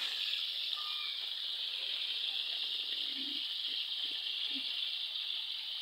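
Whole Indian mackerel frying in a pan of hot oil, a steady, even sizzle.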